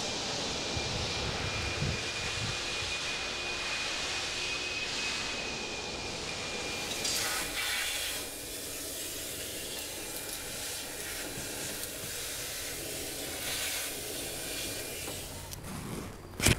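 A steady rushing hiss of air with a thin high whine over it for the first several seconds, then a quieter, thinner hiss; a single sharp knock near the end.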